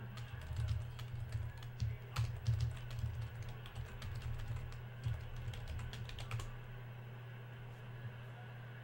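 Typing on a computer keyboard, a quick run of key clicks that stops about six and a half seconds in, over a steady low hum.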